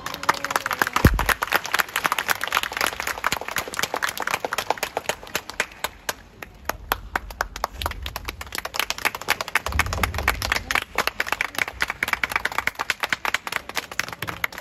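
Applause: many people clapping steadily, with sharp individual claps from hands close by. A single thump about a second in.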